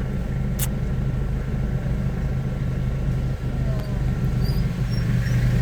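A vehicle engine running steadily as a low, even hum, with a single sharp click about half a second in.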